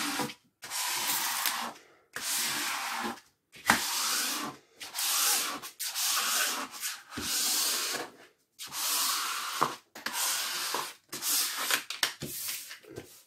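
Hands rubbing and smoothing a diamond painting canvas on a table: about ten swishing strokes, each about a second long with short pauses between. The canvas is being pressed flat to work out creases and air bubbles.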